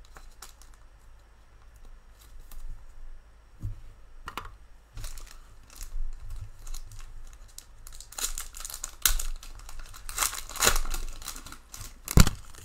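Crinkling, rustling and tearing of a foil trading-card pack wrapper and clear plastic card sleeves handled in gloved hands, heaviest in the last few seconds. A single sharp click near the end.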